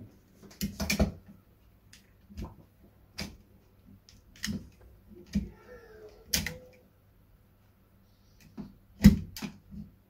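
Irregular metal clicks and knocks as a UPVC door lock gearbox is handled and fitted onto its steel locking rail, the loudest knock near the end. A faint short wavering tone sounds about six seconds in.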